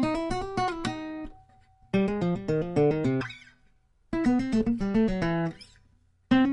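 Background music: short phrases of quick plucked-string notes, about two seconds apart, with brief silences between them.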